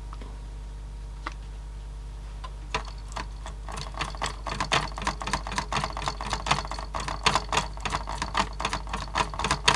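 Fast, irregular clicking and rattling of a Sony mini CD player's mechanism as the laser pickup sled is moved along its freshly oiled slide bar by hand, starting about three seconds in, after a few single light ticks.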